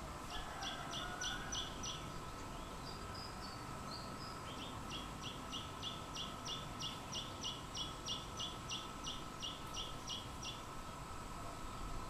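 A bird calling a rapid series of short, high notes, about four a second, in two runs: a brief one near the start and a longer one from about five seconds in until near the end.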